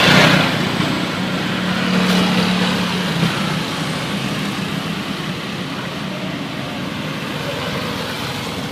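Road traffic going past: a vehicle rushes by loudly at the start, then a steady low engine drone lasts a couple of seconds over continuous tyre and road noise. No horn tune sounds.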